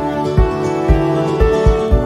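Background music: a soft instrumental track with held tones over a steady low beat about twice a second.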